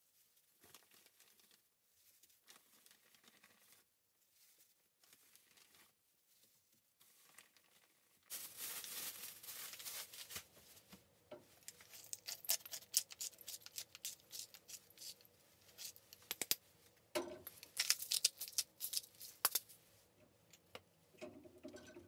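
Faint soft handling of raw chicken breasts, then a hand pepper grinder crunching over them from about eight seconds in, a gritty rasp breaking into rapid sharp clicks in two spells.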